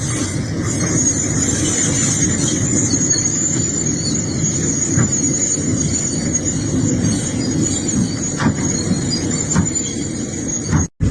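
Excavator working, its engine running with a steady rumble under a thin, steady high-pitched metallic squeal. The sound cuts out abruptly for a moment near the end.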